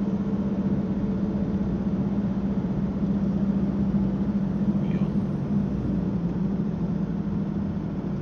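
Car driving at a steady speed: an even engine and road drone with a steady low hum.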